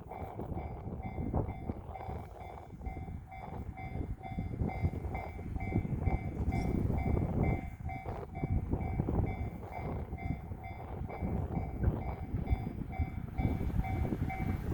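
Japanese level-crossing warning bell ringing in an even, repeating pulse while a six-car Shinano Railway 115 series electric train runs past on the rails, with wind buffeting the microphone.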